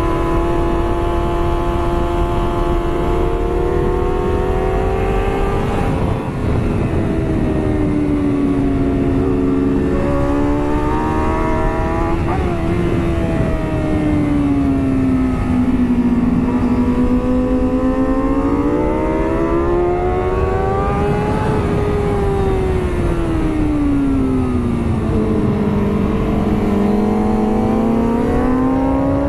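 2009 Kawasaki ZX-6R's 599 cc inline-four at high revs on track, over a steady rush of wind. The engine note climbs under acceleration and drops away as the throttle is rolled off for corners, falling around six, fourteen and twenty-four seconds in and rising again each time.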